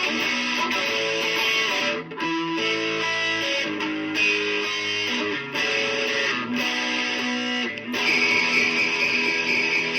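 Guitars playing a pop-rock song instrumentally, sustained melody notes over strummed chords. It breaks off briefly about two seconds in and again near the end, then a fuller, brighter passage comes in.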